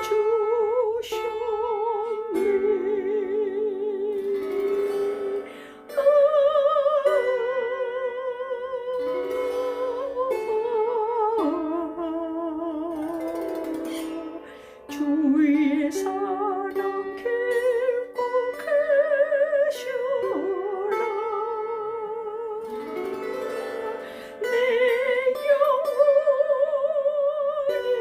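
Lyre mini harp plucked in a slow hymn melody, with a voice singing along in long notes with heavy vibrato. There are short breaks between phrases.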